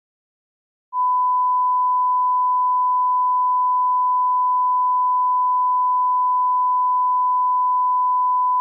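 Silence, then about a second in a single steady electronic tone near 1 kHz starts abruptly and holds at one pitch: an emergency-alert attention tone.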